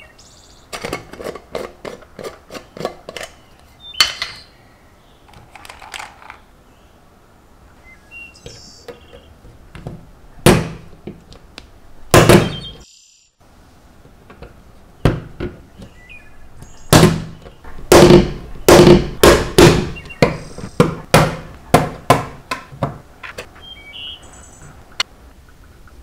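Plastic mechanical keyboard switches snapping into a metal keyboard plate one after another: a string of sharp clicks and knocks, often several in quick succession.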